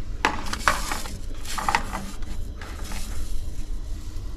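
Metal clinks and knocks from a small built-in gas oven and grill as its door is handled and closed, with a few sharp ones in the first two seconds, over a low steady rumble.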